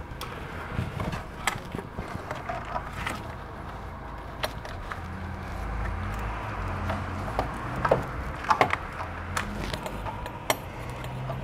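Scattered light clicks, taps and rattles of gloved hands handling hoses, fittings and metal parts in a car's diesel engine bay, over a faint low hum.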